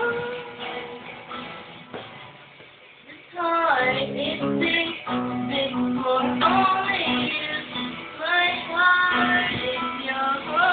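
A young female voice singing a song to acoustic guitar accompaniment. The voice drops away for a moment and comes back strongly a little over three seconds in.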